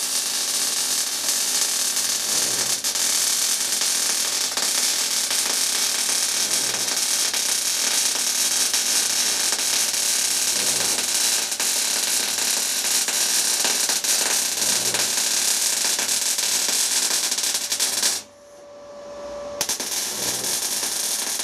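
MIG welding arc crackling steadily as a seam is run on steel plate. The arc stops about 18 seconds in, leaving a faint steady tone, and strikes again a second and a half later.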